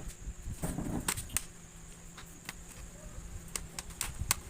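Sharp plastic clicks and snaps of a laptop's case being pressed and clipped shut, a quick cluster about a second in and a few more near the end.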